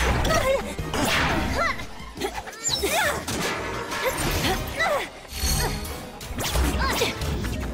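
Cartoon fight soundtrack: action music under repeated crashes and whooshes, with short grunts and cries of effort.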